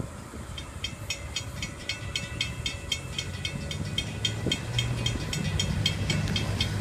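Railroad grade-crossing bell ringing rapidly, about five strikes a second, while the crossing gates rise after the train has passed; it stops near the end. Under it, car engines hum as vehicles pull across the tracks.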